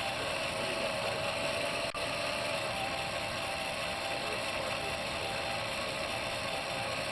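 12-volt DC motor overvolted to 32 volts running steadily as it spins a fire tornado rig: a continuous mechanical whir with a steady hum. There is a single brief click about two seconds in.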